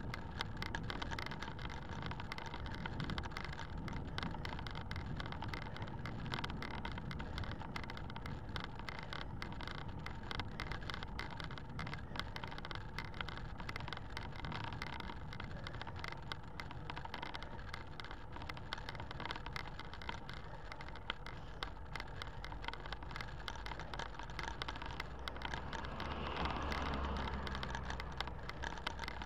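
Steady rush of wind and road noise on a camera carried along a road, with fine crackling from wind buffeting the microphone. Near the end it swells briefly with a deeper rumble as a car comes close ahead.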